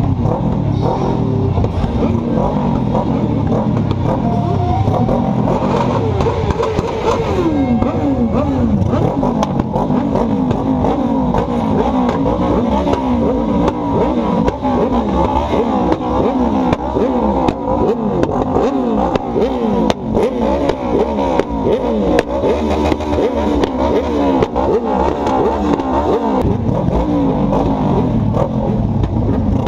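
Several motorcycle engines running at low speed, with bikes revving, as a motorcycle rolls slowly through a crowd of other bikes.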